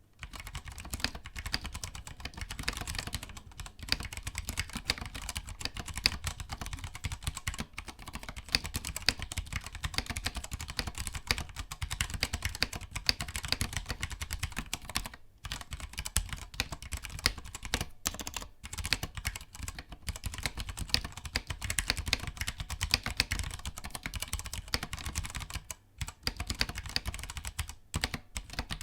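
Steady fast typing on a Ducky One 2 Mini mechanical keyboard with brown switches: a dense run of key clicks with a few short pauses.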